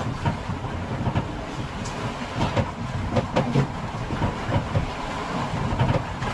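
Boat at sea: steady wind and water noise with irregular knocks and clatter against the hull.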